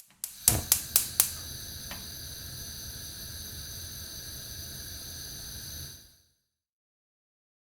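Gas hob igniter clicking five times in quick succession, then the burner gas hissing steadily with a faint whistle, cut off suddenly about six seconds in.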